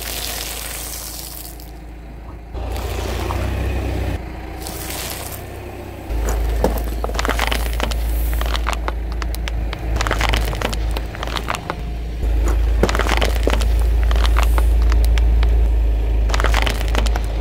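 Car tyre slowly rolling over and crushing popcorn and plastic objects on paving stones: crackling and crunching, dense from about six seconds in, over a steady low rumble.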